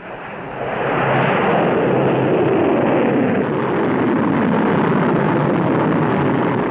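Rocket engines at launch: a loud, dense rumble that swells over the first second and then holds steady.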